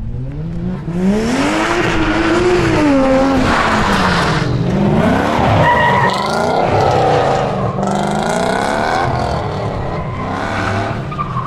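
Toyota Mark II drift car sliding sideways on loose, dusty asphalt, its engine revving up and dropping back again and again while the rear tyres squeal and skid.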